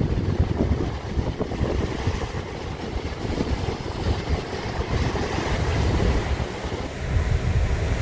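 Sea waves breaking and washing over the boulders of a rocky shore, with strong wind buffeting the microphone as a constant low rumble.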